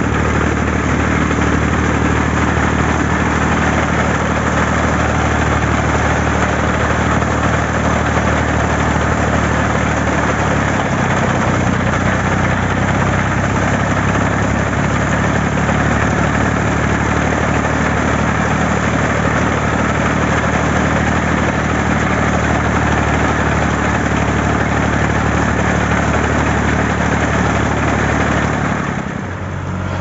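Al-Ghazi tractor's diesel engine running steadily under load as it drives a front-mounted reaper binder through standing wheat. The engine note shifts slightly about ten seconds in.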